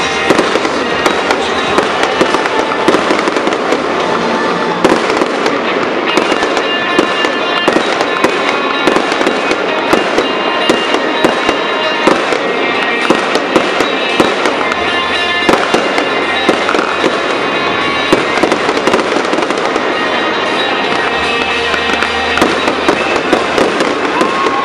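Fireworks display: a dense, continuous run of bangs, pops and crackles from aerial shells bursting overhead.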